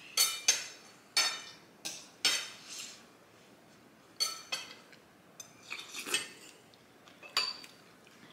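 A spoon clinking against a bowl during a meal of lentil soup, about nine sharp ringing taps at uneven intervals.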